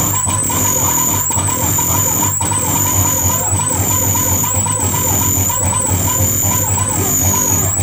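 Live electronic noise music from synthesizers and mixers: a loud, dense wash with a high whistling tone that dips about once a second, a warbling mid tone and a steady low drone.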